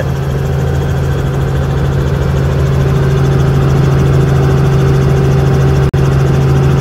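Helicopter engine and rotor drone heard from inside the cabin in flight: a steady low hum with a constant tone, unchanging throughout. It cuts out for an instant about six seconds in.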